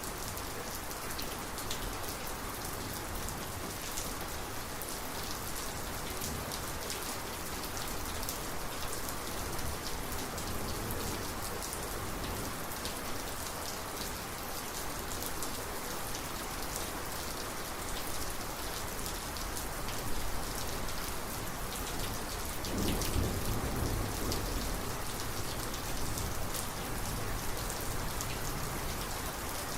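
Steady rain of a thunderstorm, many drops striking close by. About three-quarters of the way through, a low rumble of thunder swells for a few seconds, then fades back under the rain.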